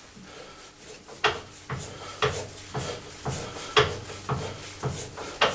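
Colchester Student lathe collet chuck turned by hand, giving a run of light metal clicks, about two a second.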